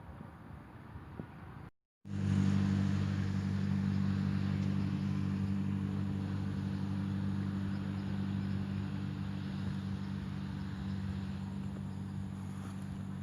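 An engine running steadily at an even speed. It starts abruptly after a short gap about two seconds in and holds a constant hum to the end.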